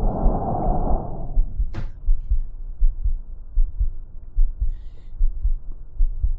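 Stethoscope recording of lung sounds: a breath sound rushes for about a second, followed by a long, much quieter pause, while the heartbeat thumps regularly underneath. A single sharp click comes just before two seconds in.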